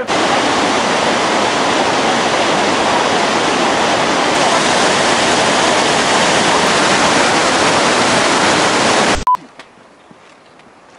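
White water of a Himalayan mountain stream rushing and cascading over boulders: a loud, steady rush that cuts off abruptly about nine seconds in, leaving quiet outdoor background.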